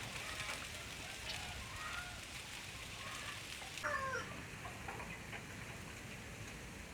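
Several short bird chirps over a steady hiss, the loudest call, a quick falling chirp, about four seconds in.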